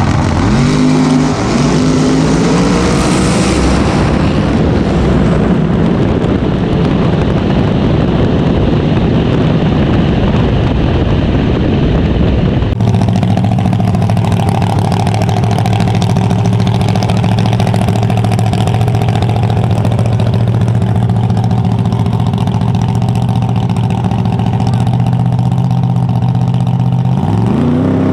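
Fox-body Mustang drag car's engine revving up into a long, loud burnout with the rear tyres spinning. After a cut the engine runs at a steady low rumble as the car rolls up to the line, and it revs up again near the end.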